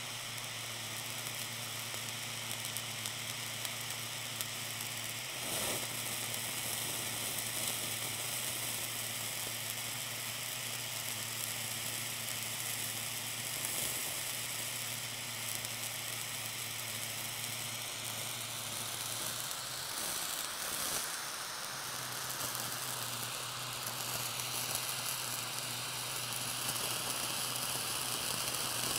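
Small handheld blowtorch hissing steadily as its blue flame plays on a wedge of blue cheese, the melting cheese sizzling under it. About twenty seconds in the sound briefly changes as the torch is moved to the other side of the cheese.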